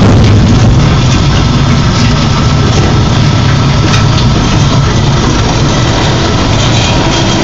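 1998 Challenger hopper-fed grinder running, its engine going steadily and loudly with a low, even hum of machinery throughout.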